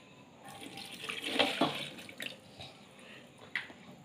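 Milk poured into a mixer-grinder jar onto Oreo biscuits, a splashing pour lasting about two seconds. A few light clicks follow.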